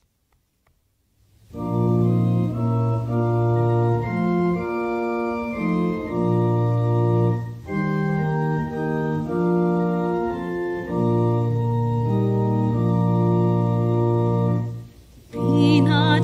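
Organ playing slow, held chords after about a second and a half of near silence, pausing briefly near the end before going on.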